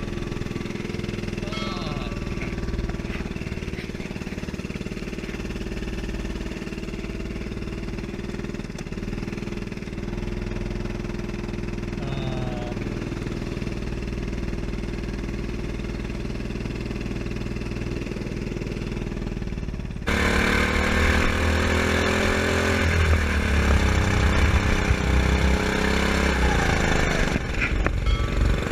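Go-kart's small petrol engine running, picked up by a camera mounted on the kart; about twenty seconds in the sound cuts abruptly to a louder stretch where the engine's pitch rises and falls as the kart speeds up and slows.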